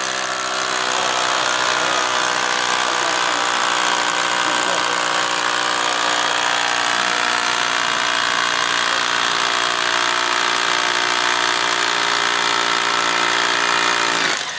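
Corded rotary hammer running steadily with its bit hammering into a stone cornerstone, then cutting off near the end.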